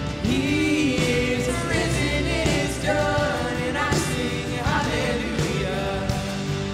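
Live worship music: singers carrying a contemporary Christian song over a band with drums.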